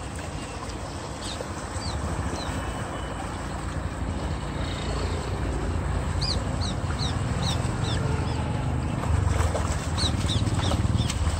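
Water gushing out of a concrete culvert pipe into a stream: a steady low rush that grows louder. A bird calls several times in quick series of short, falling chirps, and near the end a hooked fish splashes at the surface.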